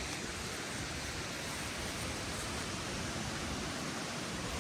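Steady rushing outdoor noise with a fluttering low rumble and no distinct events.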